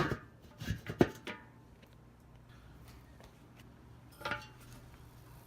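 A few short knocks and clatters: a cluster in the first second and a half, and one more about four seconds in.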